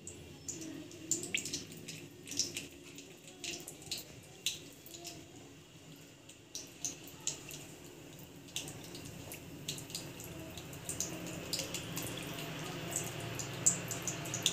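Mung dal kachoris deep-frying on low heat in oil in an aluminium kadhai: a gentle sizzle with scattered small pops and crackles, growing denser and louder in the second half.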